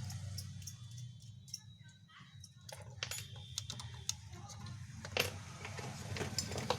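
Scattered small sharp clicks and clinks, like parts or tools being handled on a workbench, starting about three seconds in, over a steady low electrical hum.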